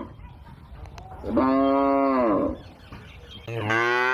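A cow mooing twice. The first is a moo of just over a second. A second, longer moo starts about three and a half seconds in.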